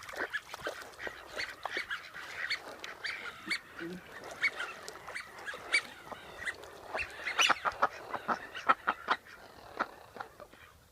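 Domestic geese honking: a rapid run of short, repeated honks that grows louder and denser about seven seconds in, then thins out near the end.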